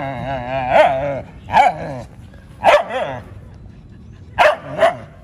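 A small, aggressive dog barking, five sharp barks in bursts. Between the first few barks it gives a drawn-out, wavering whine.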